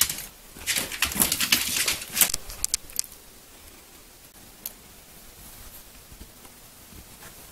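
A dog moving about at a pet door: a quick clatter of clicks and scuffles for about two and a half seconds, then it goes quiet, with a single click a little later.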